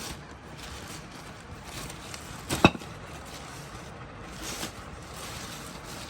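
Steady background hiss with a few light knocks, and one sharp clack about two and a half seconds in.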